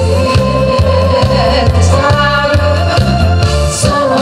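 A woman singing a Korean popular song through a handheld microphone over a recorded backing track with a steady, repeating bass beat.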